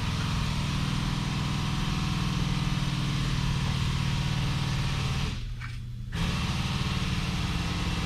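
Steady low mechanical hum of a running motor, with a strong low pitch and a hiss above it. It drops away briefly for under a second about five seconds in, then comes back.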